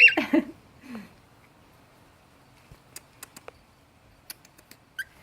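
Grey cockatiels in a cage: a short squawk that falls quickly in pitch at the start, then scattered light clicks and taps as the birds move about, and a brief chirp near the end.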